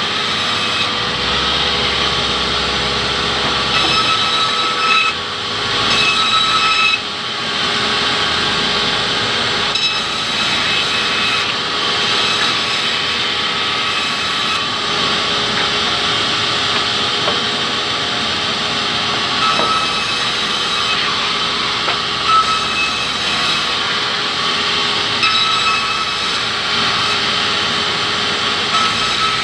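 Sawmill band saw running steadily while it cuts log slabs into planks, with its steady motor hum and the whine of the blade in the wood, and a few wooden knocks as boards are handled.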